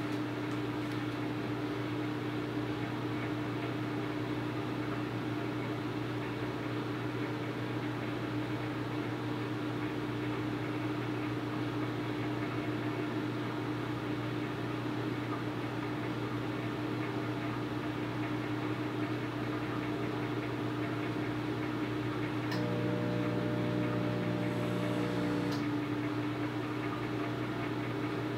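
Microwave oven running, a steady hum as it heats a bowl of oats and water. An extra hum joins for about three seconds near the end.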